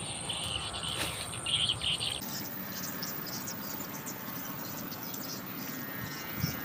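Insects chirping, with a steady high-pitched drone and rapid pulsing calls. The sound changes abruptly about two seconds in, and there is a brief click near one second.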